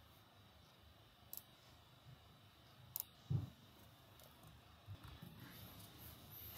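Near silence broken by a few faint clicks, about one and a half and three seconds in, with a soft thump just after the second; faint low rustling near the end.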